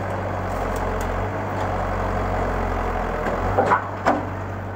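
Backhoe loader's diesel engine running steadily with a low hum. Near the end come two sharp knocks from the demolition work.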